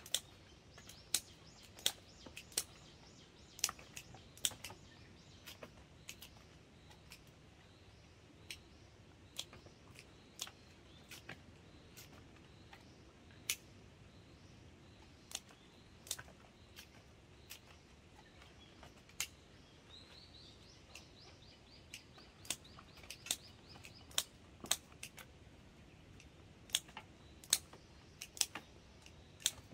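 Pruning shears snipping hydrangea stems and leaves for cuttings: sharp clicks at irregular intervals, sometimes several in quick succession. A bird chirps in a short run about twenty seconds in.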